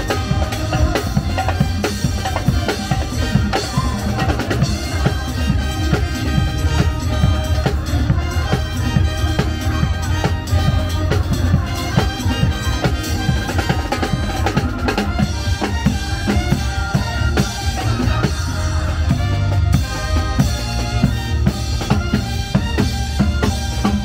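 Loud show music with a steady, driving drum-kit beat under layered melody.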